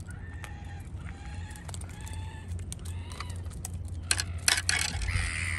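Gulls calling: short high calls, then a longer harsh squawk starting near the end. A quick cluster of sharp knocks about four seconds in is the loudest sound.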